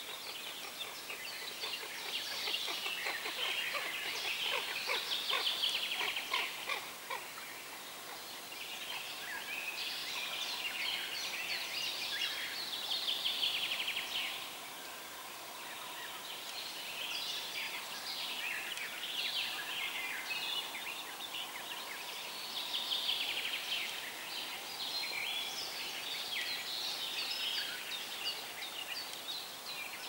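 Songbirds singing in quick, busy trilling phrases, one run after another, over a steady murmur of flowing river water.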